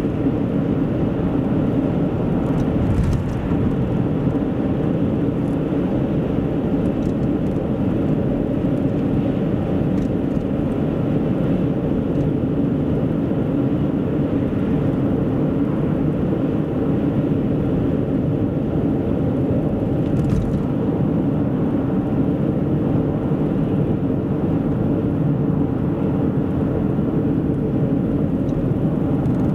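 A car driving at steady speed: a continuous rumble of tyres and engine, with a faint knock about three seconds in and another around twenty seconds in.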